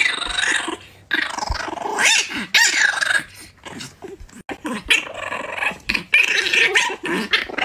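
A French bulldog puppy growling and yapping in a string of short, rough, high-pitched bursts: a playful mock-fierce growl at a hand.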